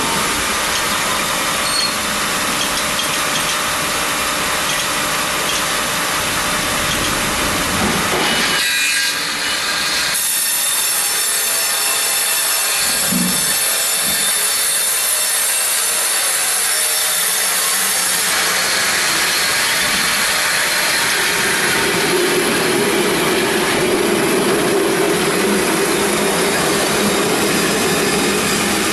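Serra XT 135 mobile band sawmill running loud and steady as it saws through a large log. Its sound changes about nine seconds in, turning thinner with a high ringing whine, then grows fuller again past the middle.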